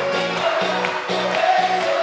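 Live rock band playing a fast polka rhythm, several voices singing together over guitars, keyboards and drums with a steady beat of about two a second.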